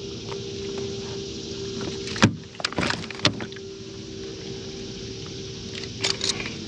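Sharp knocks and clatters of a catfish and gear being handled in a kayak, a cluster about two to three seconds in and another near the end, over a steady hum.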